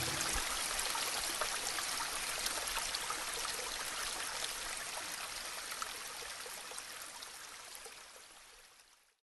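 A forest stream running, a steady rush of flowing water with small scattered splashes, slowly fading away near the end.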